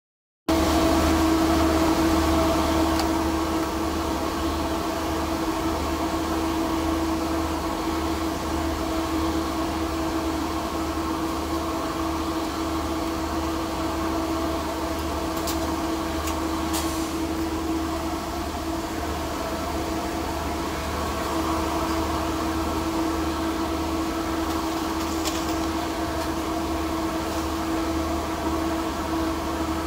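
Portable ventilation blower running with a steady hum, with a couple of faint ticks about halfway through.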